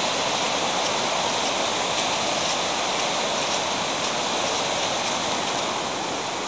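The Moselle river in heavy flood: fast, high white water rushing steadily over its bed.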